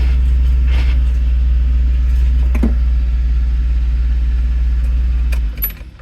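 1989 Nissan Sentra's four-cylinder engine idling steadily, with a few light knocks, then switched off about five and a half seconds in.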